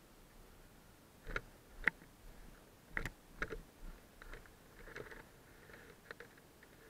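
About six scattered light clicks and knocks, with no engine running: handling and footstep noise from someone moving around a parked motorcycle.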